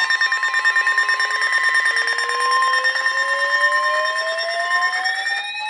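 Electronic emergency alert tones: a steady high tone that cuts off about five seconds in, over a fast pulsing tone and a slowly rising siren-like sweep.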